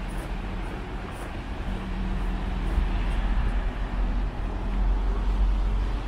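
City road traffic: a low, steady rumble of passing vehicles that grows louder in the second half.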